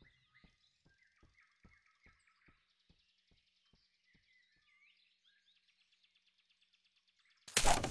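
Quiet animated-forest ambience: faint bird chirps and trills, with a row of soft ticks that slow down and die away. Near the end a sudden, loud burst of noise cuts in, lasting about half a second.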